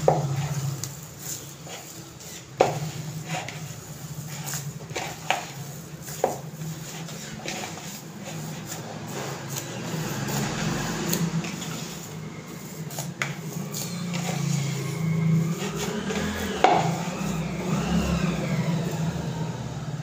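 Hands squishing and kneading a soft potato and bread mixture in a plastic bowl, with a few sharp knocks of the bowl against the stone counter, over a steady low hum.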